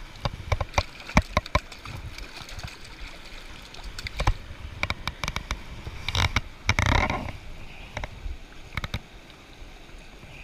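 A river running steadily over rocks, with a hooked rainbow trout splashing in the shallow water at the bank. Sharp knocks and clicks come throughout, and a longer, louder splash comes about six seconds in.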